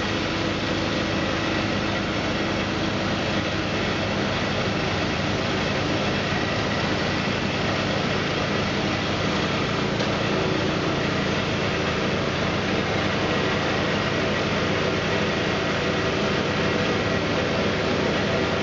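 Two-stage snow blower engine running steadily under load while its upgraded impeller throws wet snow, an even, unbroken drone.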